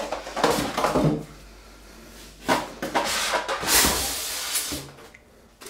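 Cardboard and styrofoam packaging inside a computer box being handled, rubbing and scraping in several short rustling bursts with brief pauses as a packing compartment is pulled open.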